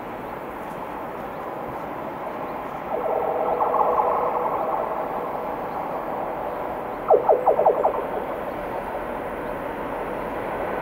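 Freight train hauled by ÖBB electric locomotives approaching on the curving track, a steady rumble that slowly grows. About three seconds in there is a brief high-pitched squeal, and around seven seconds a quick run of short, sharp squeaks.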